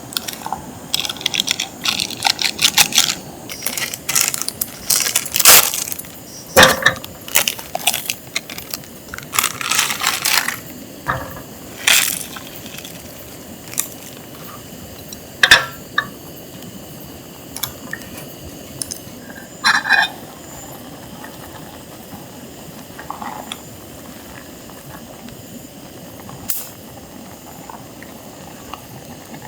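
Clicks, clinks and clatter of small hard objects being handled, busy for the first dozen seconds and then only a few separate knocks over a quiet steady background.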